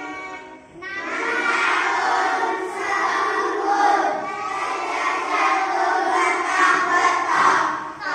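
A group of children chanting in unison, reciting Arabic animal names together, starting about a second in.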